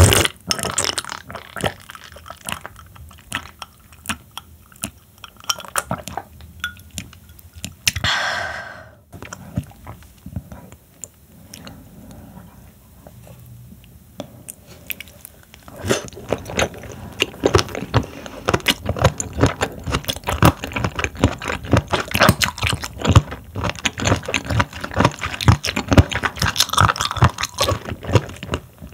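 Close-miked chewing of raw seafood sashimi (horn conch, sea squirt and scallop), with wet, crunchy bites. Sparse and quiet at first, then loud and steady from about halfway, with a brief swishing sound about eight seconds in.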